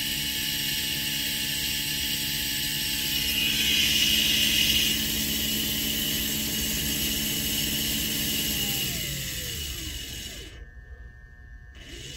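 Two PG42-BL4252-24V BLDC gear motors with 42 mm planetary gearboxes running on 24 V: a steady motor whine over gear noise. About 8.5 s in the whine falls steadily in pitch and the sound fades as the motors slow down.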